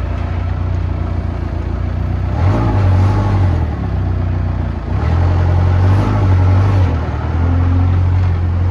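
A vehicle engine running with a strong low hum, growing louder about two and a half seconds in and again about five seconds in, as if under more throttle.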